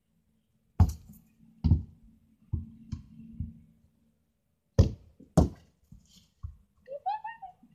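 A series of sharp, irregular knocks and thuds, seven in all, with a short pitched rising and falling sound, like a brief voice or call, near the end.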